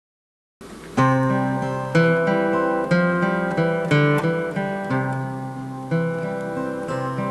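Solo acoustic guitar, a chord struck about once a second with the notes ringing between strikes, starting about half a second in.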